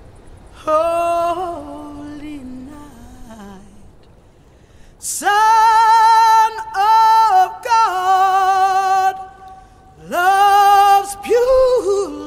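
Music: a woman singing a slow melody in long held notes with vibrato, the phrases separated by short breaks and growing louder about five seconds in.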